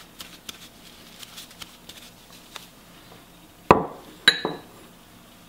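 Diced vegetables dropping into a stainless steel mixing bowl with faint scattered ticks. Then a small bowl is set down on a wooden table with two knocks about half a second apart, the second with a short ringing clink.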